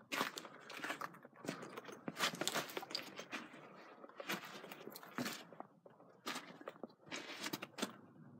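Footsteps and scrambling on gritty sandstone and sand: irregular crunching and scraping steps, several a second.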